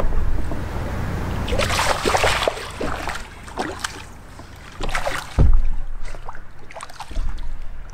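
Hooked smallmouth bass thrashing and splashing at the surface beside a boat's hull, in two bursts about two and five seconds in. A heavy low thump comes near the end of the second burst.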